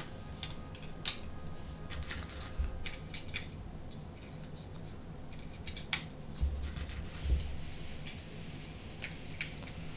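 Loose plastic Lego pieces clicking and clattering against each other and the tabletop as a hand sifts through a pile of parts. Scattered sharp clicks, the loudest about a second in and again around six seconds, with a few dull knocks soon after.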